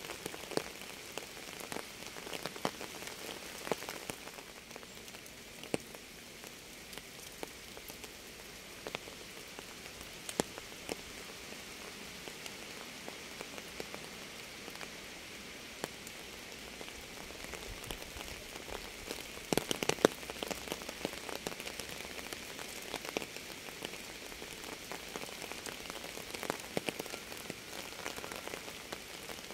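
Steady rain falling on a surface, with individual drops ticking sharply throughout and a brief flurry of louder drips about twenty seconds in.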